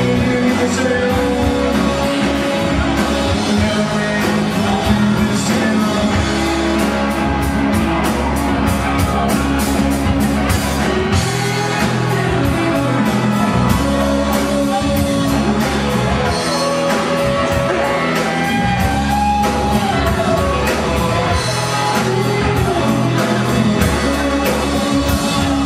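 Rock band playing live: electric guitar, electric bass and drum kit with a quick, even cymbal beat, and a man singing over it.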